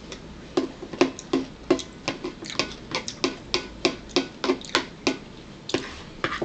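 Mouth sounds of a person chewing food: a run of short smacking clicks, about three a second and unevenly spaced.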